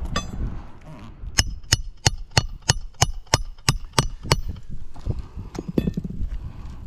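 Hammer driving a roofing nail into an asphalt shingle: a quick run of about ten ringing blows, roughly three a second, then a few lighter taps. The roof is brittle enough that each bang knocks granules loose.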